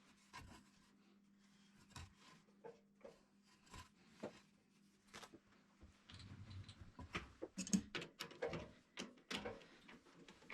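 Scattered light clicks and knocks of small objects being handled, sparse at first and coming thicker in the second half, over a faint steady hum.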